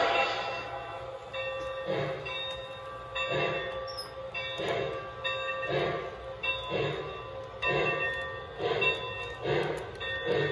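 Sound system of a Lionel Legacy O-gauge Santa Fe 3751 steam locomotive chuffing as the train pulls out, the chuffs coming steadily faster until roughly one a second near the end, over a steady ringing tone.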